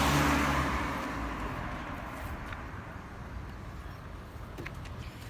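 A road vehicle passing by, loudest at the start and fading away over about two seconds, leaving a low steady background rumble.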